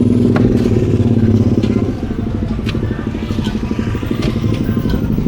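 A small engine running close by with a fast, even pulse, loudest for about the first two seconds and then a little quieter and steady.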